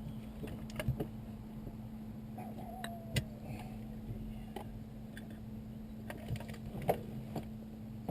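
Scattered light clicks and taps of wiring and plastic connectors being handled, a little louder about one and three seconds in, over a steady low hum.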